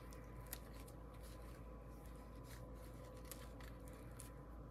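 Near silence: faint steady room hum with a few scattered light clicks, about one every second.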